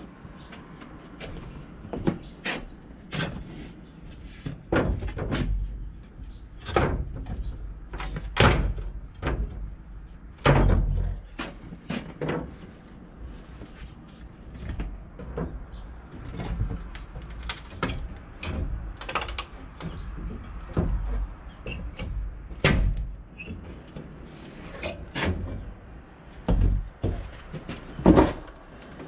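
Steel pry bar working wooden wall boards loose from a timber frame: irregular knocks and heavier thuds of wood and metal, a few seconds apart, the loudest about ten seconds in and near the end.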